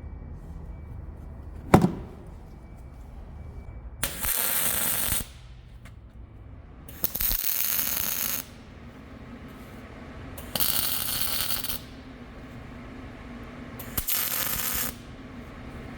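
MIG welder laying four short tack welds on steel, each a burst of crackling hiss of about a second that starts and stops abruptly, a few seconds apart. A single sharp metal knock comes near the start, before the first tack.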